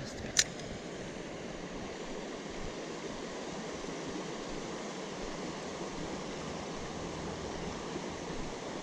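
Creek water running steadily, an even rushing wash, with a single sharp click about half a second in.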